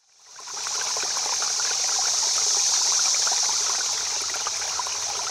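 Creek water running, fading in from silence in the first half-second and then holding steady, with a bright hiss and a fine crackle of small splashes.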